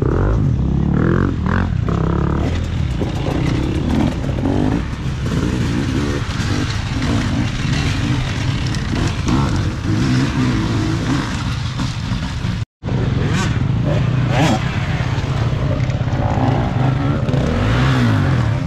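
Dirt bike engines revving up and down as the bikes ride the enduro track. The pitch rises and falls repeatedly, and the sound drops out for an instant about two-thirds of the way through.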